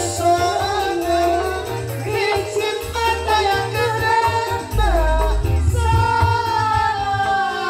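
Live koplo dangdut music through a PA: a singer carrying the melody into a microphone over a band with a steady, rhythmic bass line.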